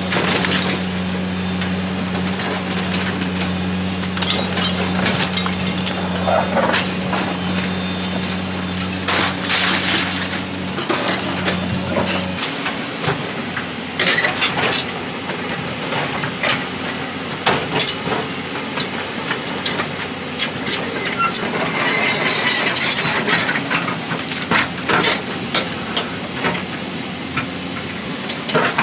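Demolition with heavy machinery: a steady engine drone for about the first twelve seconds, then stopping suddenly, under many sharp cracks and knocks of breaking and crushing material.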